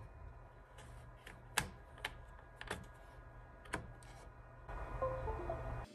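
Several light clicks and taps as a USB plug is fitted into a laptop's side port. Near the end comes the Windows device-connect chime, a short run of faint tones, which signals that the laptop has recognized the FAST Nano pinball controller board over USB.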